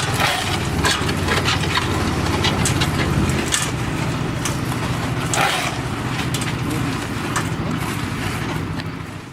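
A motor-driven machine running steadily: a low hum with irregular clicks and scrapes over it. It fades out near the end.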